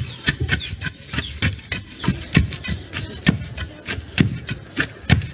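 Wooden pestle pounding in a mortar, a fast, regular run of heavy thuds, about four a second.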